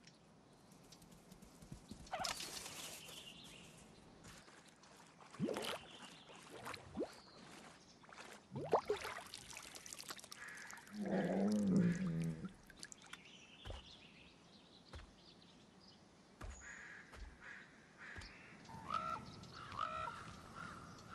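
Quiet wild-forest sounds: water splashing and dripping as a brown bear drinks, a louder low animal call about eleven seconds in, and common ravens calling near the end.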